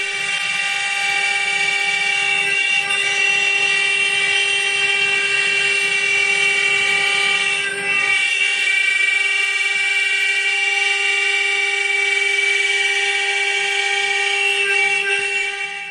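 Eight spindles of a 4-axis rotary CNC router whining steadily at a fixed pitch while rough-carving, with a low, rough cutting rumble under the whine that drops away about halfway through.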